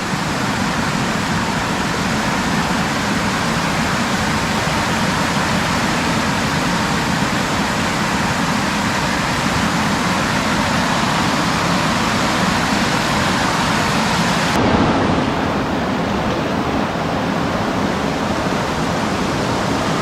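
Small creek waterfall rushing, a loud steady roar of falling water close by; about three-quarters of the way through the highest hiss drops away abruptly while the rush goes on.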